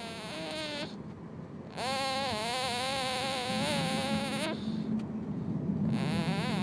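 Sleeping baby snoring: long, high-pitched, wavering squeaky breaths, three of them, with a lower rough rumble joining in about halfway through.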